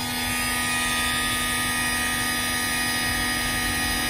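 Add-A-Motor electric coop door opener running steadily with an even, constant-pitched whine as it lifts the chicken coop door open.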